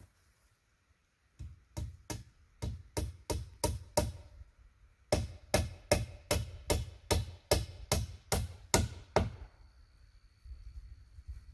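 Hammer blows on the log wall, about three a second in two runs of a dozen or so strikes, with a short pause between them. The strikes stop a little over two seconds before the end.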